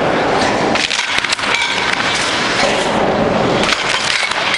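A string of firecrackers going off in loud, dense, continuous crackling, with a few sharper cracks about a second in.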